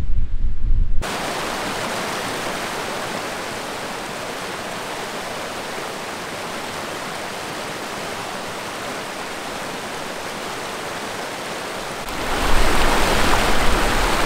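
Wind buffeting the microphone for about the first second, then the steady rush of a rocky mountain stream, which turns louder and closer about twelve seconds in.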